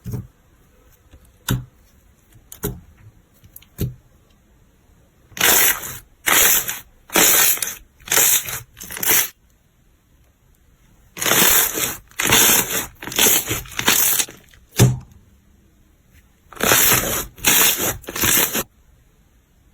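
Slime being pressed and squeezed by hand. A few light clicks come first, then three runs of short, noisy squishes about a second apart, four or five in each run.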